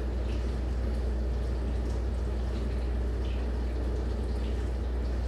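Steady, even background noise with a constant low hum and a few faint ticks.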